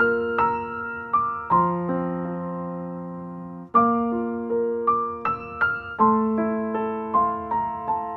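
Background music: an electric piano playing a slow melody over chords, each note struck and then fading.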